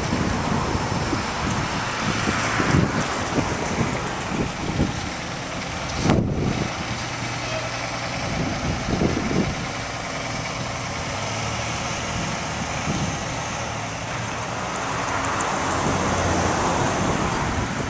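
1989 MCI Classic city bus's diesel engine running as the bus drives slowly into a garage bay. A single sharp knock about six seconds in.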